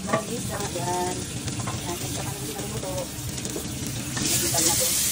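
Fish frying in hot oil in a pan on a gas hob, sizzling steadily and getting louder and brighter about four seconds in.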